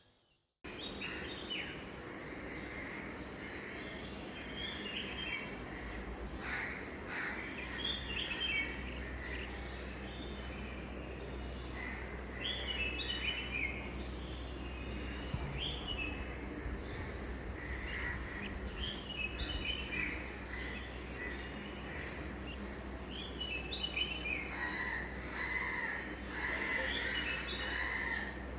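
Several birds chirping and calling, with many short rising and falling notes, over a steady low background hum. The calls grow busier near the end.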